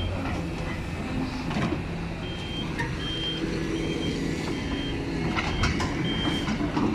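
Heavy diesel engines running steadily, with a vehicle's reversing alarm beeping regularly, about one beep every 0.7 s, from about two seconds in, and a few knocks.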